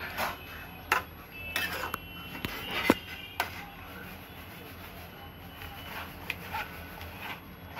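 Metal ladle clinking and scraping against a metal kadai as chopped spinach is stirred into chicken, several sharp knocks with a short metallic ring in the first few seconds, the loudest about three seconds in. After that only a few faint ticks over a low steady background.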